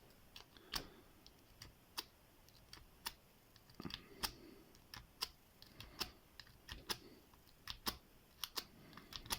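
Faint, irregular clicks of a half-diamond lock pick working the pin stack of a Lockwood padlock, one or two ticks a second.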